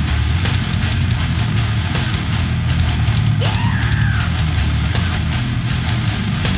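Slam death metal track: heavily distorted low-tuned guitars and pounding drums, with a short squeal that rises and falls in pitch about three and a half seconds in.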